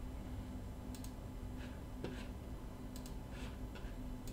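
Computer mouse clicking several times, faint and irregular, over a steady low hum.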